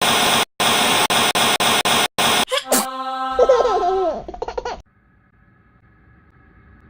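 Loud bursts of static-like noise broken by short gaps, then a laughing voice over steady tones, fading to a faint hum.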